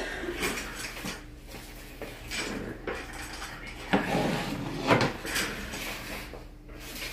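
Irregular clatter and knocks of small hard objects being handled and set down, with a couple of louder knocks about four and five seconds in.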